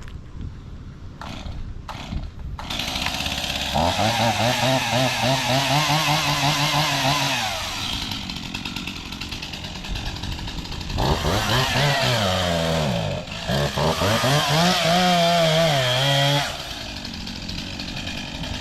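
STIHL chainsaw at full throttle in two long bursts, its pitch sagging and wavering as the chain bites into a tree trunk, dropping back to a fast idle between the bursts and near the end.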